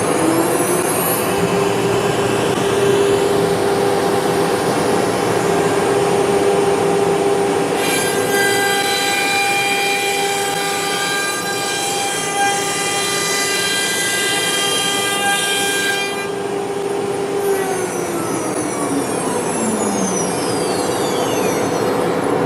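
CNC router's HSD spindle whining up to speed, holding a steady high pitch, then winding down with a falling whine near the end. In the middle, for about eight seconds, the bit cuts into the workpiece: a louder hiss with a ringing, many-toned whine over it.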